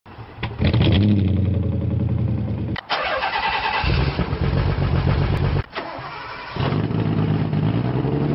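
Car engines starting and idling in short clips spliced together, each cut off suddenly. The first engine catches about half a second in.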